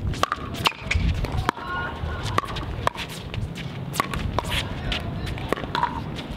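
Pickleball rally: repeated sharp pops of paddles hitting the plastic ball and the ball bouncing on the hard court, coming at uneven intervals, with shoe scuffs and footsteps of players moving around the court.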